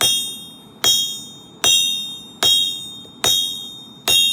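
Hand hammer striking hot steel on an anvil in a steady forging rhythm, about one blow every 0.8 seconds, six blows in all, each leaving a bright metallic ring that fades before the next.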